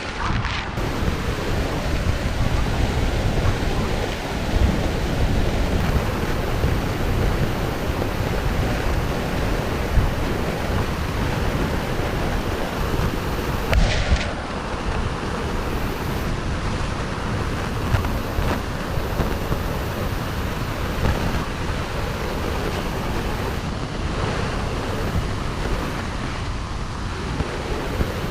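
Waterfall rushing steadily, a loud, even roar of falling water with a deep rumble underneath. A brief sharper noise cuts through about halfway.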